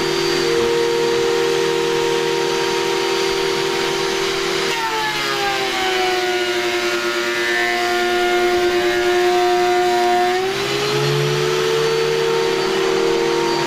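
Belmash 2200 three-knife thickness planer running with its chip extractor; about five seconds in a pine board goes into the cutterhead and the motor's whine drops in pitch under the load of the cut, holds lower for about six seconds, then rises back as the board clears.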